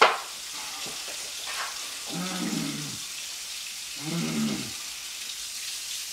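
A man's muffled, closed-mouth groans, twice, about two and four seconds in, as he drinks from a carton with his head tipped back, his mouth burning from hot sauce. A steady hiss underneath, and a sharp knock right at the start.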